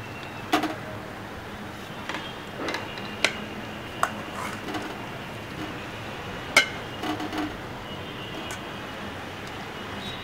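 Metal spatula clanking and scraping against a steel pot and an aluminium kadai as chicken pieces are pushed out of the pot, with sharp clanks about half a second, three seconds and six and a half seconds in, over a steady hiss.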